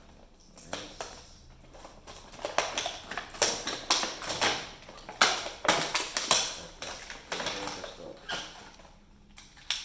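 Handling of a plastic toy pistol and its packaging: irregular clicks, taps and rustles, busiest in the middle.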